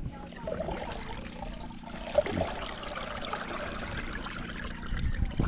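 Water pouring and trickling as it is bailed out of a small fishing boat, with a faint steady hum underneath.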